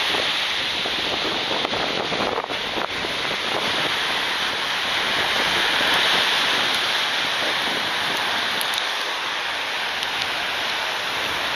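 Gulf surf washing over the shallows: a steady hiss of small breaking waves with no break.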